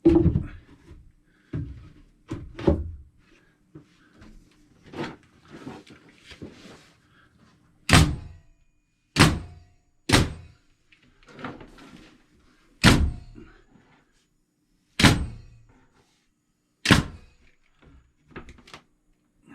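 Wooden wall boards being nailed up: a few softer thuds and knocks, then six loud sharp knocks spaced a second or two apart.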